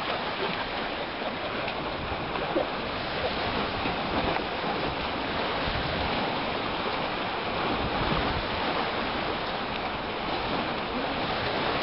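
Steady rushing noise of wind and choppy lake water washing along a concrete pier wall, with irregular low rumbles.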